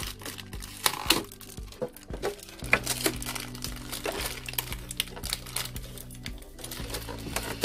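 Crinkling and clicking of plastic packaging as a doll's clothes are unclipped and pulled free of their plastic holder, in a series of short crackles.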